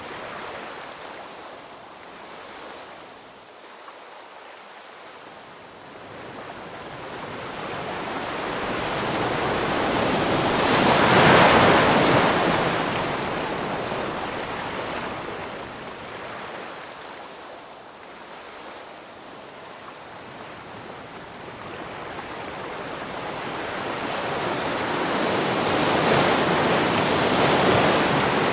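Ocean waves breaking and washing in as a rushing noise with no tones. One wave swells to its loudest about eleven seconds in and then drains away, and a second builds up near the end.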